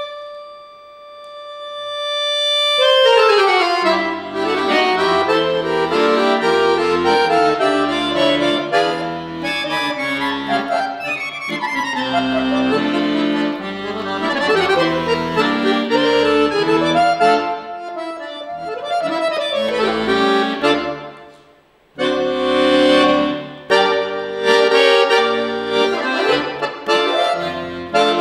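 Solo piano accordion playing. A single held note swells up over the first few seconds and breaks into a fast falling run, then quick melodic passages over bass notes. About three quarters through the music fades almost to nothing for a moment, then comes back in loudly.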